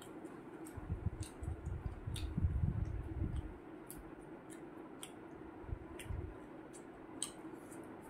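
Close-up mouth sounds of a person eating with her fingers: wet clicks and lip smacks while licking curry off her fingers. Between about one and three and a half seconds there are heavier chewing and swallowing sounds. A faint steady hum runs underneath.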